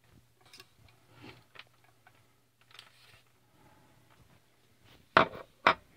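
Handling noise: soft rustles and light clicks as a small brushless motor is turned over in the hand, then two sharp knocks about half a second apart near the end.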